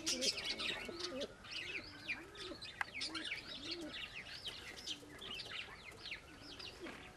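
Domestic pigeons cooing: a run of low, arching coos about twice a second. Many short, high-pitched chirps run over them.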